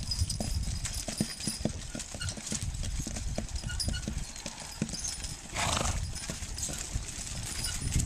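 Hooves of a six-horse draft team thudding irregularly on soft, freshly plowed ground as the hitch walks by pulling a riding plow. About two-thirds of the way through, a short hissing burst is the loudest sound.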